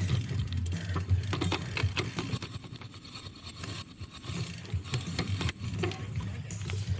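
Cyclocross bike being raced: a steady low rumble with constant rattling and clicks from the bike. About two and a half seconds in there is a rapid run of ticks that lasts around two seconds.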